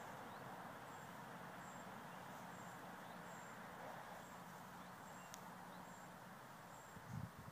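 Faint, steady outdoor background noise with small high ticks every half second or so. Low rustling thumps start about a second before the end.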